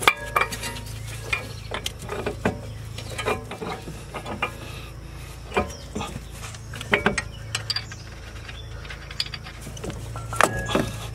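Scattered metal clicks and knocks from a new CV axle's splined shaft being slid into the wheel hub and the steering knuckle being worked onto it, with a few sharper knocks about seven and ten seconds in, over a steady low hum.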